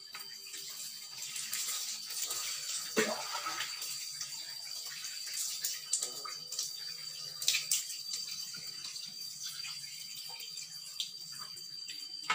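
Water splashing and sloshing as long hair is washed in a basin of water, with a few sharper splashes standing out.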